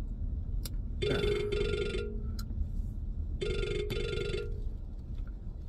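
A ringing tone in repeated rings, each about a second long and trilling, coming about every two and a half seconds: two full rings, with a third starting right at the end. A low steady hum runs underneath.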